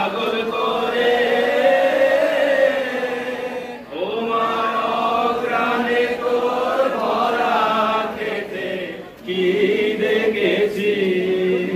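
Group of voices singing a slow melody in long held notes. The phrases break briefly about four and nine seconds in.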